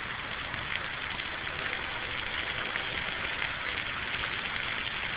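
Park sprinklers spraying water that comes down like rain: a steady hiss and patter of falling drops, described as "fake rain".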